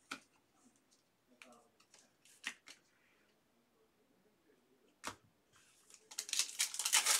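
Trading cards being handled, with faint scattered clicks and slides, a single sharp snap about five seconds in, and a louder burst of crinkly rustling near the end.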